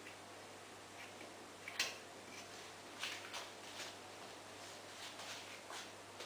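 Light clicks and taps of small hard parts being handled during a washing machine repair: one sharper click about two seconds in, a few softer ones about three seconds in, then scattered faint ticks, over a faint steady hum.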